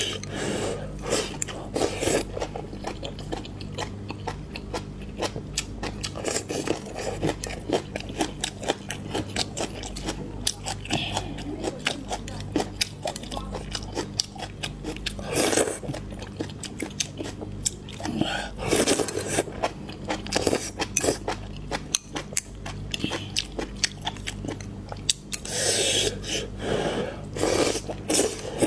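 A person chewing and biting food close to the microphone, with crunching, in a continuous stream of small clicks and a few louder bursts, over a faint steady low hum.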